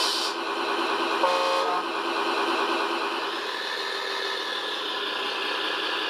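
A short horn toot from an RC model truck's sound module, lasting about half a second, a little over a second in, over a steady whirring hum.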